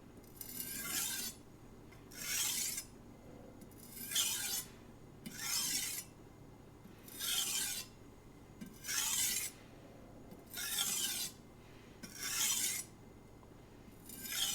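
Knife blade stroked across a whetstone at very light pressure, about nine slow, even strokes, each a short scraping rasp. These are the final light passes that remove the last of the burr from the edge.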